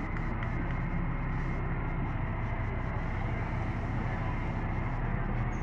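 Fire truck diesel engines running steadily, an even low drone.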